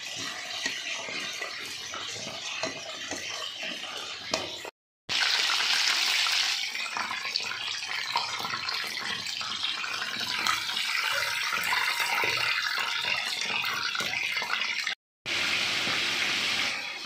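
A spoon stirring and scraping in a steel bowl of spiced yogurt marinade. After a brief break, chicken leg pieces sizzle steadily in bubbling hot oil in a frying pan; this is the loudest part. The sound cuts out again briefly near the end, then the sizzling hiss returns.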